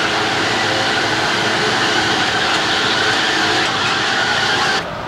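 Steady mechanical running noise of a spinning kiddie car ride, with the general din of an amusement park. It cuts off abruptly near the end.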